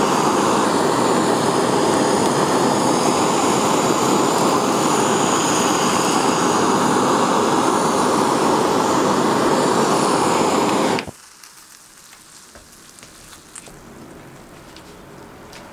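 Kitchen blowtorch flame rushing steadily while it caramelizes the sugar on top of a pudding, cutting off suddenly about eleven seconds in. The melted sugar crust then crackles and sizzles faintly with small popping ticks as it bubbles.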